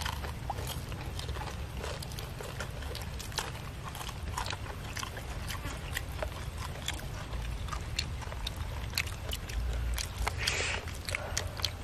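Chewing of crispy deep-fried chicken: many quick, irregular crunches and crackles.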